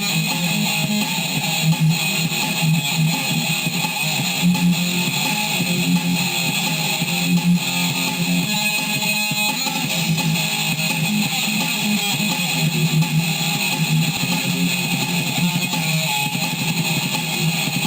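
Electric guitar playing a strummed song through an effects pedal.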